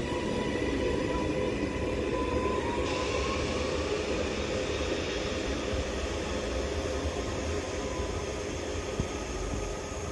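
Northern Class 331 electric multiple unit pulling away from the platform: steady running noise with a whine from its traction equipment that climbs in pitch a couple of seconds in as it accelerates.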